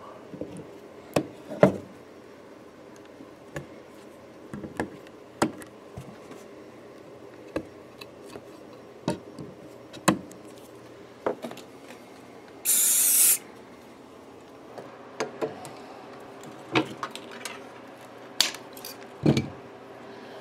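Cutting nippers snipping side-dot rods off at the edge of a guitar fretboard: a series of sharp, irregular clicks. About two-thirds of the way in comes a short hiss of aerosol spray, likely CA glue activator setting the dots.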